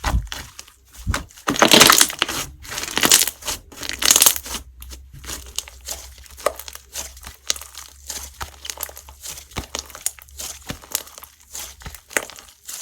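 Slime being squeezed, stretched and poked by hand, giving sticky pops and crackles. They are louder and busier in the first few seconds, then turn into softer, quicker little clicks.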